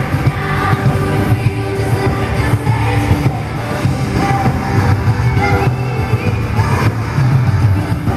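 Amplified live pop music: female group vocals over a full band with a strong, steady bass beat.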